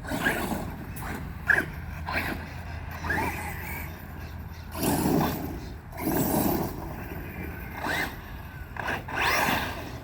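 Electric remote-control truck driving in short bursts: the motor whines up in pitch several times, with scrabbling tyre and ground noise.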